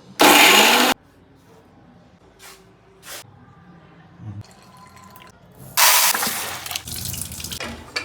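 Water running in two bursts: a short, loud one just after the start and a longer one about six seconds in, with faint clicks and knocks between.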